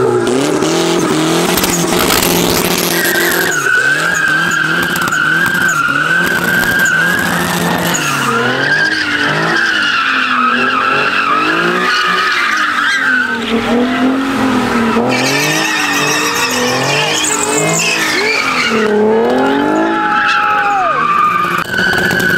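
Cars doing donuts on asphalt: engines revving up and down over and over while the tyres squeal loudly.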